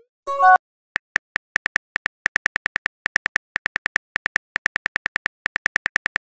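Simulated smartphone keyboard clicks tapping out a text message, about four to five clicks a second with brief pauses. A short rising chime sounds just before the clicks begin.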